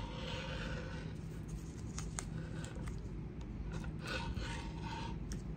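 Rotary cutter blade rolling through stretchy swim lining fabric on a cutting mat, in several short scraping strokes with a few small clicks.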